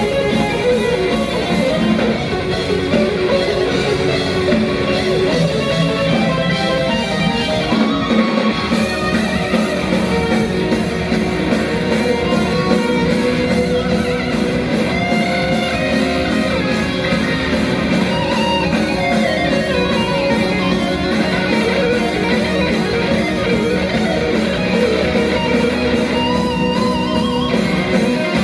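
Heavy metal band playing live, an electric guitar leading an instrumental passage over bass and drums. From about eight seconds in, cymbals keep a fast, even beat.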